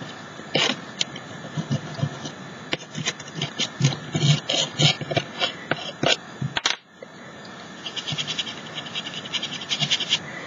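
Soft pastel stick rubbed hard in quick repeated strokes over a plastic stencil onto a rough canvas: a dry, scratchy rasping, with a brief pause about seven seconds in.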